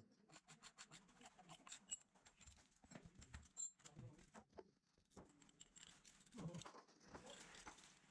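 Near silence, with faint, scattered clicks and light knocks.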